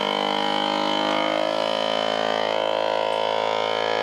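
FoodSaver vacuum sealer's pump motor running with a steady hum as it draws the air out of a plastic bag around a steak, its tone shifting a little about two seconds in.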